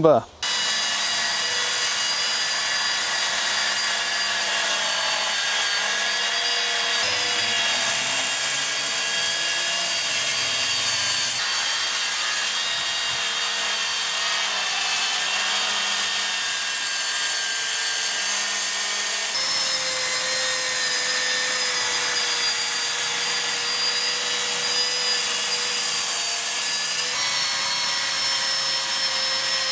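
Cordless plunge-cut track saws, a Metabo KT 18 LTX 66 BL and a HiKOKI 36 V, running one after the other as they rip a strip off 45 mm framing timber along a guide rail. The motor whine and blade noise hold steady under load, shifting in pitch a few times.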